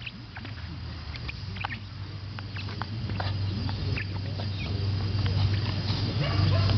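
A small dog at rough play with a person and a toy: a busy run of short, sharp high sounds and scuffles over a low steady hum, louder toward the end.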